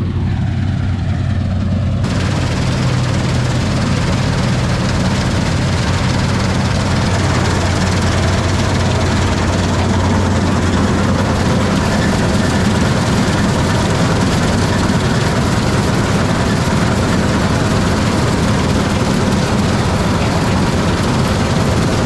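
Combine harvester running steadily at working speed: a deep diesel engine drone under a wide mechanical rush. The higher part of the rush gets louder about two seconds in.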